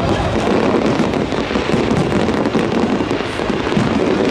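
Aerial fireworks going off continuously: a dense, unbroken run of overlapping pops and crackles.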